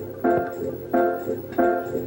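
Instrumental backing music: a keyboard playing short repeated chords in a steady beat, about three chords in two seconds, leading into a children's song.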